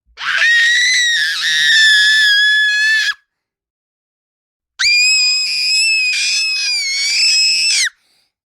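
Two long, shrill, high-pitched screams from a person, each held about three seconds with a pause between; the second is pitched higher than the first.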